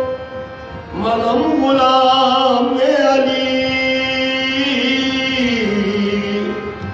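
A male qawwali singer's voice sings one long, drawn-out line, its held notes bending slowly up and down. It comes in about a second in, after a brief dip.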